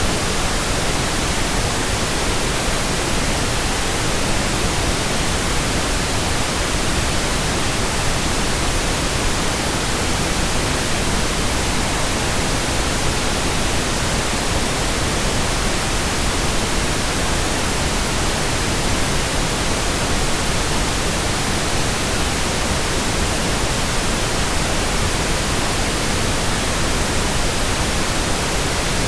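Steady white noise: an even, unbroken hiss spread across all pitches, with no change in level.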